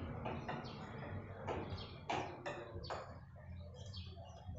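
Faint light clicks and taps of metal parts being handled at a motorcycle's rear brake caliper and pad pin, with a few short high chirps that fall in pitch.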